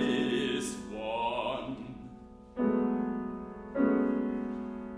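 Classical art song with grand piano: a man sings a short phrase with vibrato, then the piano strikes two sustained chords a little over a second apart, each ringing and dying away.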